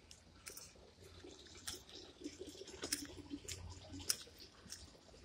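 Faint, irregular clicks and rustles of a phone being handled while filming.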